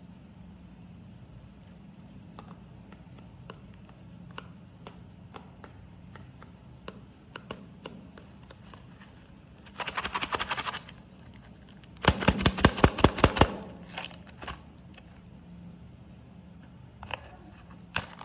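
Packaging being handled and opened by hand: scattered small clicks and rustles, a brief crackle about ten seconds in, then a fast run of loud clicks about twelve seconds in, with a few more clicks near the end.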